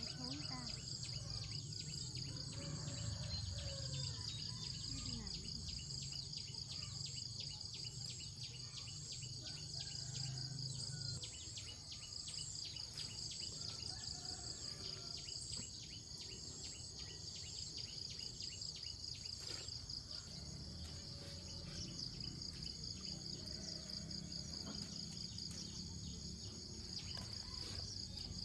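Insects trilling steadily in a high, fast pulsing chorus, with a few faint bird calls and a low rumble that drops away near the middle and returns near the end.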